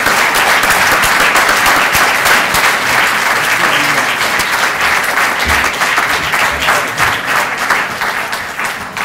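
Audience applauding with dense, steady clapping that begins to die down near the end.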